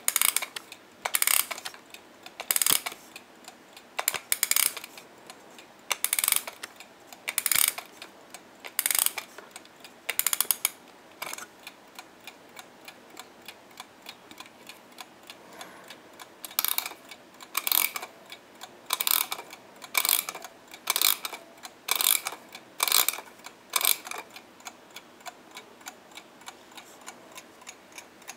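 Mechanical wind-up alarm clock ticking steadily, with loud short bursts of ratcheting clicks about once a second as its key is turned to wind it, pausing for a few seconds midway and stopping a few seconds before the end.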